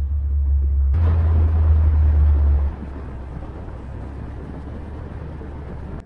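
1998 Fiat barchetta with its 1.8-litre four-cylinder engine, driving along with a steady low rumble of engine and wind. About a second in the sound turns brighter with the hiss of tyres on asphalt, and a little before three seconds the deep rumble drops away, leaving a quieter road noise.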